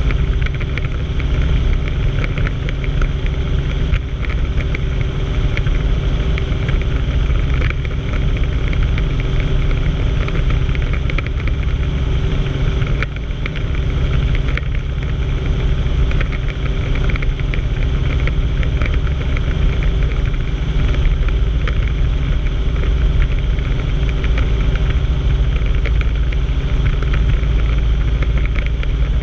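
Helicopter engine and main rotor running in steady forward flight, heard from inside the cabin: an even low rumble with a steady hum that does not change.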